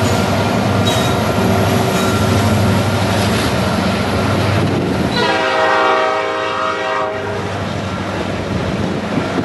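A CN diesel freight train passing close by, its locomotives rumbling over steady wheel-and-rail noise. About five seconds in, the locomotive horn sounds one held note for about two seconds and then cuts off, leaving the lighter rolling of the freight cars.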